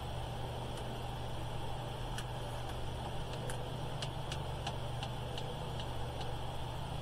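A steady low background hum, with a run of light ticks, about two or three a second, in the middle.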